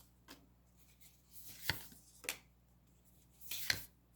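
Fortune-telling cards being slid out and laid down on a table: a few soft sliding rubs, each ending in a sharp tap.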